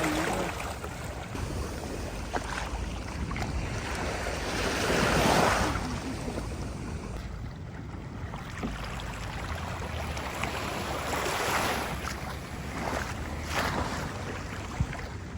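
Ocean waves washing onto the shore, the surf swelling and easing several times, with wind buffeting the microphone.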